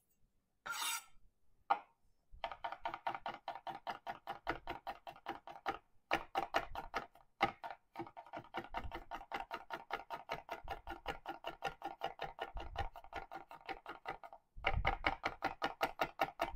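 Santoku knife mincing garlic on a cutting board with rubber feet: a fast, even run of sharp knocks of blade on board, with a brief scrape about a second in and short breaks in the chopping.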